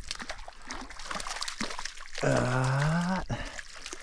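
Water trickling and splashing in small clicks as a freshly caught trout is handled at the water's surface. About two seconds in, a short rising vocal hum lasting about a second stands out above the water.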